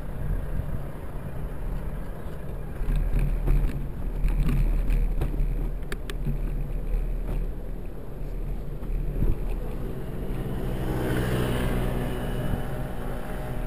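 Wind rumble and road noise on a bicycle-mounted camera riding through city traffic, with a few rattling clicks. Near the end a motor scooter's engine passes close.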